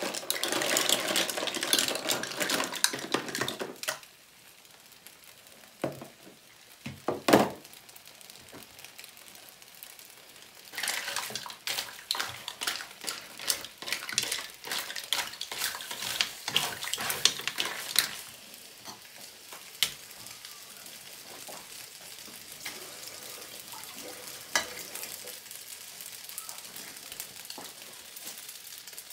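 Mussel shells clattering as they are tipped into a frying pan of spaghetti, followed a few seconds later by a couple of separate knocks. Midway the shells clatter and scrape again as they are stirred through the pasta with a spatula, and for the last third the pan sizzles steadily with occasional clicks.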